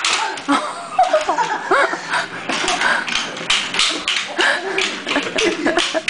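A toddler's roller skates clacking and knocking on a tile floor as he stumbles along in them, a run of sharp taps two or three times a second.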